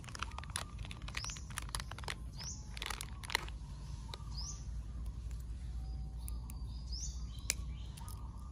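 Small birds chirping: several short, high, rising chirps spaced a second or more apart. Scattered light clicks and a low steady outdoor rumble sit underneath.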